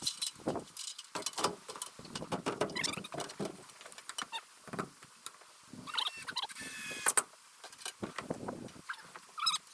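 Irregular clicks, knocks and a short scrape about two-thirds of the way through: hand work on a sliding glass door being fitted into its frame.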